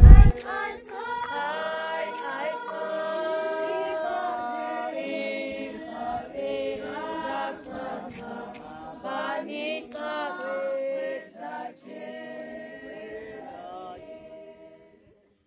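A congregation singing together unaccompanied, many voices in unison like a choir. The singing fades out near the end.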